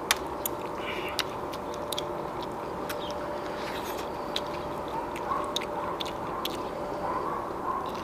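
Eating noises of a man gnawing stewed beef spine: wet smacking and sucking as he pulls meat off the bone, with short sharp clicks scattered through, over a faint steady hum.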